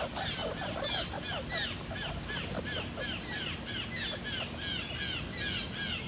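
Red squirrel giving a steady run of short, sharp chirping calls, about three a second, each rising then falling in pitch.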